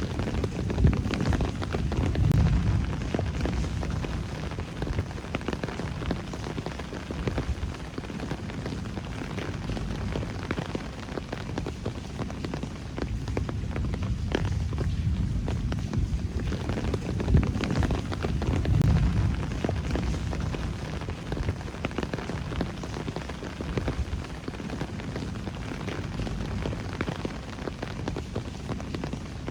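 Steady rain with many individual drops ticking close by, over a deep low rumble that swells twice, once about two seconds in and again past the middle.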